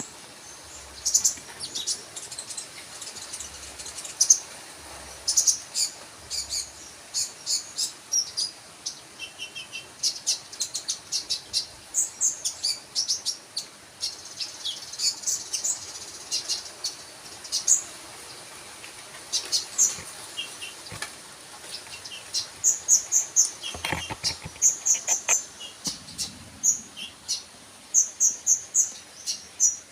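Small songbird singing: rapid, high-pitched chirps and short trills in quick bursts, with a brief low knock about three quarters of the way through.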